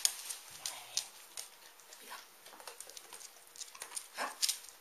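Dogs' claws clicking and pattering irregularly on a wooden floor as two dogs shuffle and jostle, with a couple of louder scuffles.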